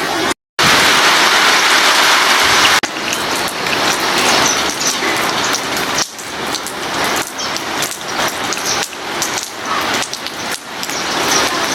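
Monsoon rain falling, with a brief gap of silence about half a second in. A steady hiss of rain gives way at about three seconds to an irregular patter of drops striking nearby surfaces.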